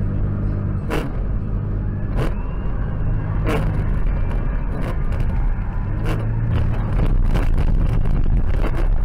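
A car driving, heard from inside the cabin: a steady low engine and road rumble, broken by about a dozen irregular sharp clicks and knocks.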